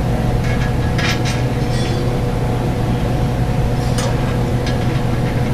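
A steady low machine hum from the shop, with a few light metallic clinks from hand tools working on the steel brake assembly, about a second in and again near four seconds.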